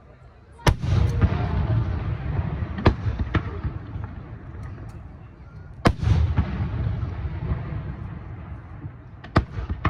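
Aerial firework shells bursting with sharp bangs: two big booms about five seconds apart, each followed by a long rolling rumble of echo, with smaller cracks between and a quick pair of bangs near the end.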